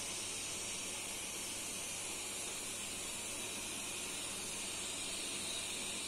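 Steady hiss of a wok of stick noodles simmering in water over a lit gas burner.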